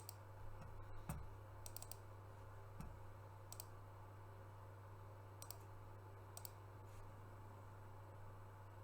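Computer mouse clicking a handful of times, some as quick double or triple clicks, over a faint low steady hum.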